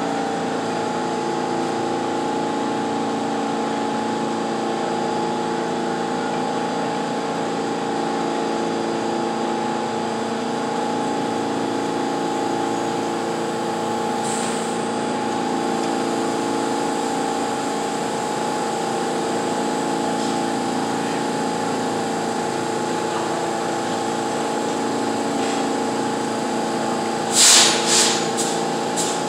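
New York City subway car standing at a platform with its doors open, its on-board equipment giving a steady hum with several steady tones. Near the end come a few short, loud bursts of hissing noise.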